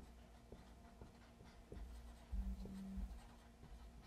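Marker pen writing on a whiteboard: faint strokes and light ticks as letters are drawn, a little louder for about a second around the middle.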